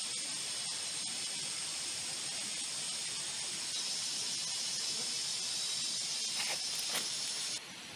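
Rainforest ambience: a steady high hiss that grows stronger about halfway through, with two sharp knocks near the end, then drops off abruptly.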